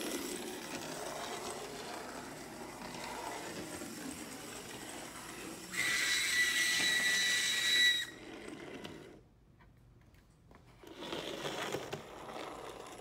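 Vintage Playart model locomotive running along the track, its exposed motor and worm-gear drive making a loud, grinding whir. Midway it turns into a louder whine with a steady high note for about two seconds, then dies away and comes back briefly near the end. The loud running noise is the fault still not cured, which the owner suspects comes from the worm gear having been pushed in.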